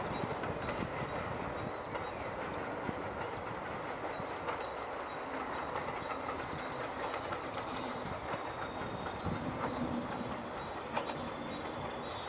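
English Electric Class 40 diesel locomotive, with its 16-cylinder engine, approaching from afar at the head of a train of coaches: a steady rumble of engine and wheels on the rails.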